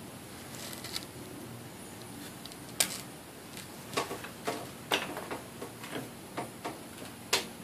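Scattered sharp clicks and light knocks from handling the Work Sharp belt sharpener while a new belt is fitted. Two louder clacks come about three seconds in and near the end, and no motor runs.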